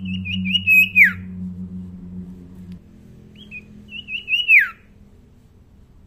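Common iora (cipoh) singing two clear whistled phrases. Each phrase is a quick warble that ends in a sharp falling slur, about three seconds apart.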